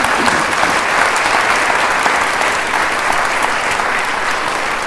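Audience applauding: a steady round of clapping from a large crowd.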